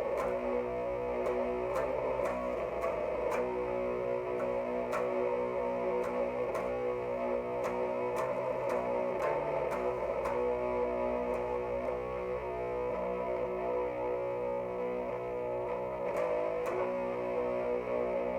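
Distorted electric guitar, a Jackson X Series through a 3-watt Orange Crush Mini with a Boss ODB-3 overdrive as a boost, playing a slow doom-metal riff of picked notes and chords left to ring.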